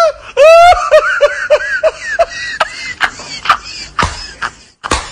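A man laughing hard: a loud, high-pitched whoop at the start, then a quick run of short falling 'ha' bursts, about three a second, breaking up into quieter, broken laughter.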